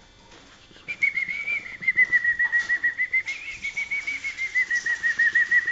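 Malinois (Waterslager) song canary singing. About a second in, it starts a long roll of rapid repeated notes, about eight a second, held at a nearly steady pitch.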